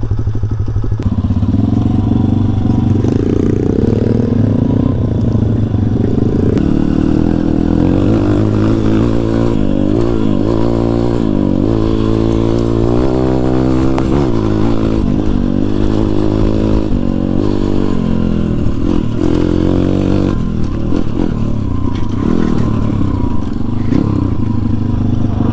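Kayo pit bike's YX 140cc four-stroke single-cylinder engine running under way, heard from on board. Its revs rise and fall several times in the middle as the rider works the throttle over the grass track, steadier at the start and end.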